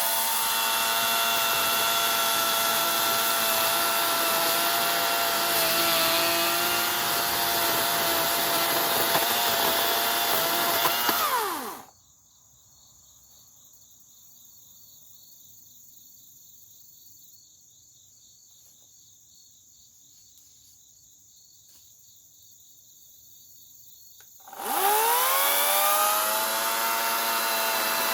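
EGO 56-volt 14-inch battery chainsaw with an electric motor running at full speed with a steady whine. About twelve seconds in it winds down and stops. After a quiet stretch it spins back up with a rising whine near the end.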